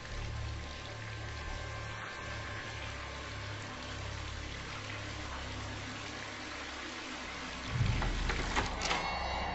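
Film sound effects: a steady hiss over a low, pulsing rumble. About eight seconds in, a heavy thump and a few sharp knocks.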